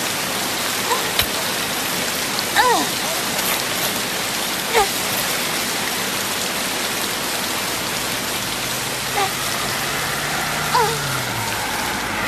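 Steady heavy rain falling on a road and a car, with a few brief pitched sounds cutting through it. In the second half a low car engine hum joins in and drops in pitch near the end.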